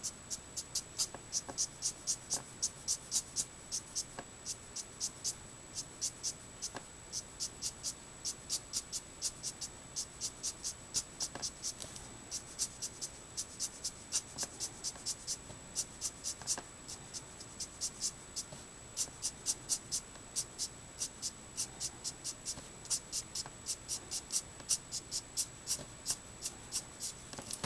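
Letraset Promarker's bullet nib flicking quick strokes across Neenah Solar White cardstock: a short dry scratch about three times a second, very regular. A faint steady high whine lies underneath.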